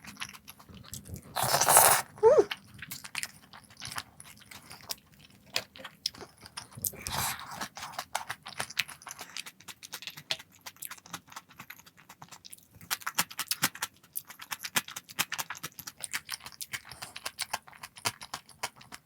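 A person eating close to the microphone: chewing and biting with many small crunchy clicks, and two louder short bursts of noise, about two and seven seconds in.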